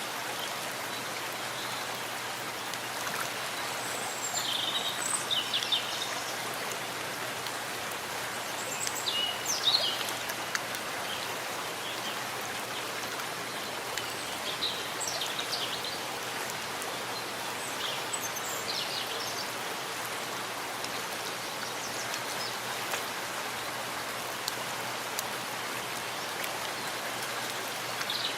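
Steady rain falling in a forest, an even hiss of drops, with short high chirps every few seconds.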